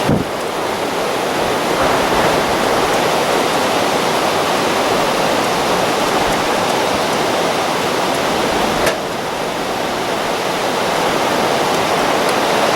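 Storm-driven waves breaking on the Lake Erie shore together with gusty wind, heard as a loud, steady rush of noise.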